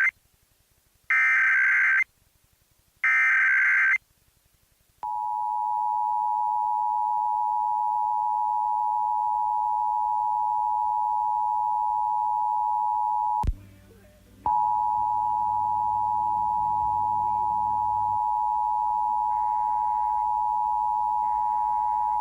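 Emergency Alert System broadcast: the end of one SAME header data burst and two more, buzzy warbling digital tones about a second each with a second's gap. About five seconds in, the EAS attention signal begins, a steady two-tone alert of 853 and 960 Hz. It drops out with a click partway through and comes back about a second later over a low hum.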